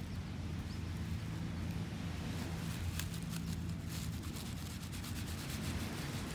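Knife sawing and scraping through a needlefish's innards to cut the gut free, a rubbing scrape with a few sharp clicks, over a steady low hum.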